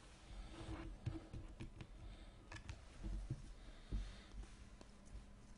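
Trading cards being handled and flipped through on a table: faint scattered clicks and light taps with a few soft knocks.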